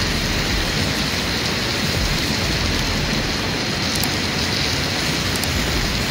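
Steady rain falling, a constant even hiss and patter with no letup.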